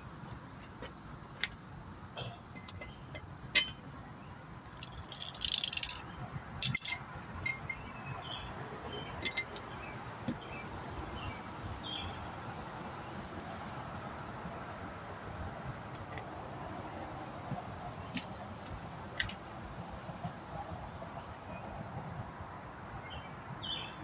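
Metal hand tools and loose metal parts clinking, worked on a pickup's wheel hub and brake assembly: scattered light clicks, with two louder jangling rattles about five to seven seconds in.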